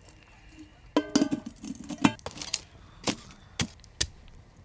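Metal camp cookware and a small folding shovel clanking at a campfire. A metal pot clanks with a short ringing tone about a second in, then five sharp knocks follow, about half a second apart.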